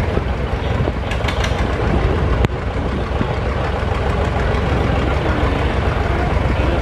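John Deere tractor engine running steadily at low speed, with one sharp click about two and a half seconds in.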